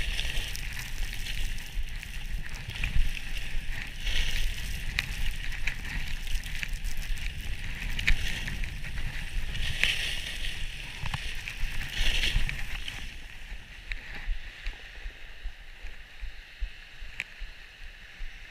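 Skis scraping and hissing over groomed snow during a downhill run, with wind rumbling on the GoPro's microphone. The scrape swells with each turn, every two to four seconds, then eases off after about 13 seconds.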